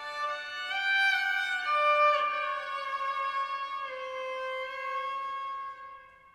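Solo violin playing a slow melody of long held notes, rising once early on and then stepping down twice before fading out near the end.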